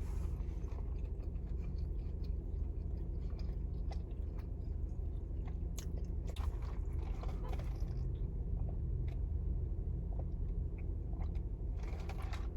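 Close-up chewing and biting of a crispy toasted grilled cheese sandwich, with scattered crunchy clicks over a steady low hum.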